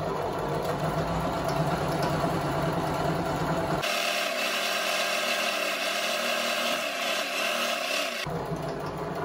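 Janome domestic sewing machine running steadily as it stitches a seam. A little under four seconds in, the sound abruptly turns thinner and hissier, losing its low hum, for about four seconds, then the fuller hum returns.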